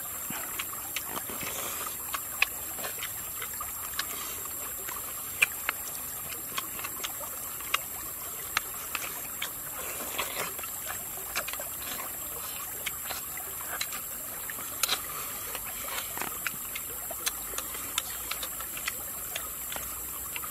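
Shallow stream running steadily over rocks, with scattered sharp clicks and taps of metal spoons scraping the cooked ostrich eggshell and the mouth sounds of eating.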